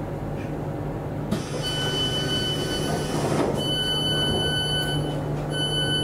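Class 455 train's door-closing warning: a high beeping tone sounding in three long pulses of about a second and a half each, over the steady hum of the standing train. A burst of hiss starts about a second in, just before the first pulse.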